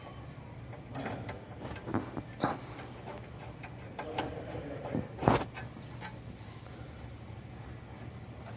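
Scattered knocks and clicks of tools and metal parts being handled during engine work, over a steady low hum; the loudest knock comes about five seconds in.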